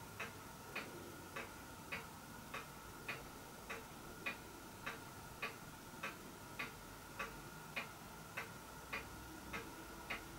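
Faint, even ticking, a little under two ticks a second, over a faint steady high hum.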